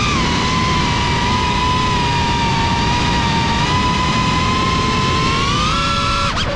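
GEPRC Cinelog 35 FPV drone's brushless motors whining at a high, nearly steady pitch over a rush of propeller and wind noise. The pitch climbs slightly near the end, then drops away abruptly.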